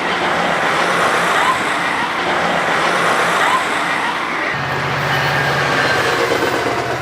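A passing train: a loud, steady rush of noise, joined by a low, even engine drone about four and a half seconds in.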